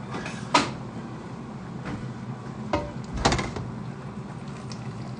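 A few sharp knocks and clinks of kitchen utensils against stainless steel pots on a hob, the loudest about half a second in and a cluster a little past three seconds, over a steady low hum.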